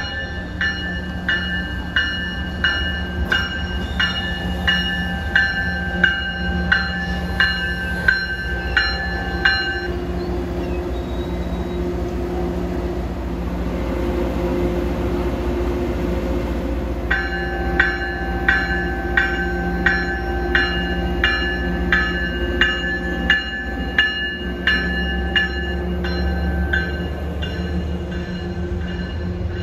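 Diesel commuter-rail locomotive's bell ringing in even strokes, about three every two seconds, over the steady running of its engine. The bell stops for several seconds about a third of the way in, then starts ringing again.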